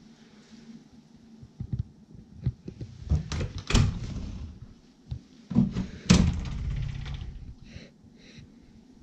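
A sliding closet door in a Japanese-style room is opened. Two loud knocks against the frame, about four and six seconds in, are each followed by a low rumble of the door running in its track, with small handling knocks before them.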